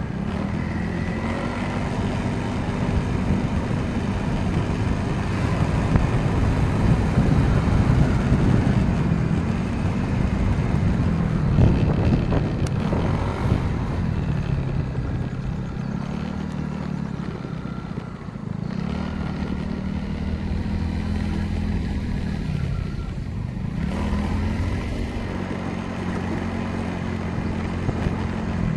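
Motorcycle engine running while being ridden, its pitch rising and falling as the rider speeds up and slows down, over a constant low rush of road and wind noise.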